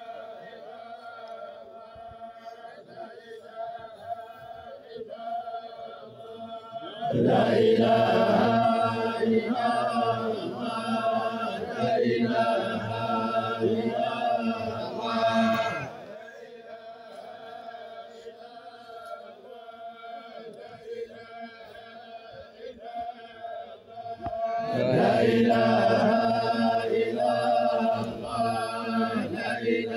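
A crowd of men chanting together in unison, a funeral chant for the dead. Louder passages, from about 7 to 16 seconds in and again from about 25 seconds, alternate with softer ones.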